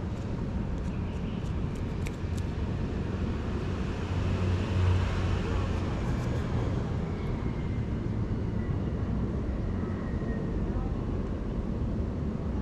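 Steady low outdoor background rumble, with a few light clicks in the first couple of seconds as the drone is handled. The drone's motors are not running.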